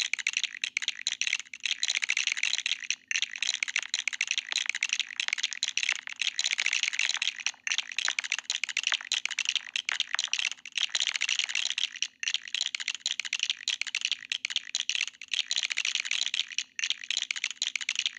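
Plastic LEGO plant pieces clicking and rattling in a rapid, continuous clatter as they are picked from a loose pile and pressed onto the studs of LEGO plates, with brief breaks.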